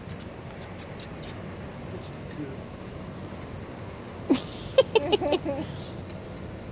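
Field crickets chirping in a steady, regular series in the background. About four seconds in, a brief burst of short pitched vocal sounds, a dog's or a person's, stands out over them.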